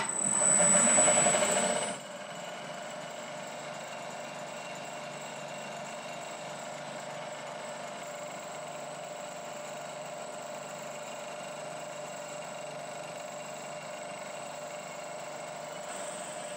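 1960s Bridgeport milling machine spindle switched on with a click, louder for about the first two seconds, then running steadily with a high whine while a small drill bit bores a mounting hole in an aluminium end cap.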